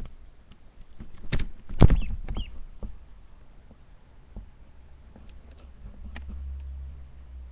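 Handling noise from a phone camera being moved about: a cluster of knocks and scrapes between about one and two and a half seconds in, then scattered light ticks, with a low hum rising near the end.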